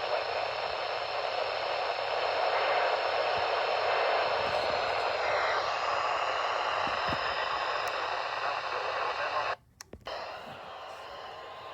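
Radio static: a steady hiss from a radio receiver with no clear programme. It cuts out suddenly for about half a second near the end, then returns quieter.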